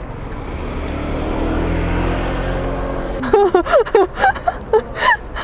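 A motor vehicle passes on the street, its engine sound swelling and then easing off over the first three seconds. Then a woman makes a run of short wordless vocal sounds while eating, murmurs and gasps that rise and fall in pitch.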